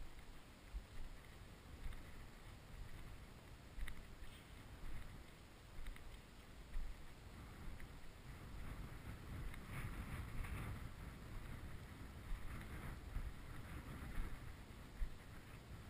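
Wind noise on the microphone, with irregular crunches and rustles of footsteps through dry cut rapeseed stubble.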